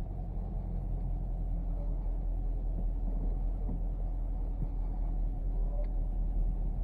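Chevrolet Camaro's 6.2-litre LT1 V8 running at idle, a steady low rumble heard from inside the cabin.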